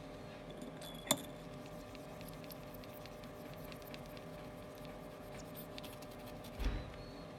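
Melamine sponge rubbing over an iPhone LCD's glass to lift leftover polariser glue: quiet rubbing with small ticks, over a steady electrical hum. A sharp click about a second in and a dull knock near the end.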